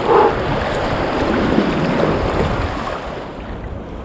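Sea waves sloshing and wind buffeting the microphone around a kayak, with a brief louder surge right at the start; the rushing eases after about three seconds.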